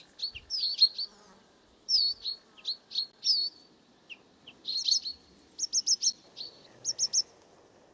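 A small songbird singing: phrases of quick high chirps and short down-slurred whistles with pauses between them, including a run of four rapid notes a little after halfway and three more near the end.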